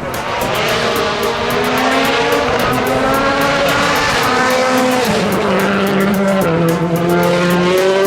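Rally car engine pulling hard under acceleration, its pitch climbing and then dropping sharply at two upshifts, about five and six and a half seconds in.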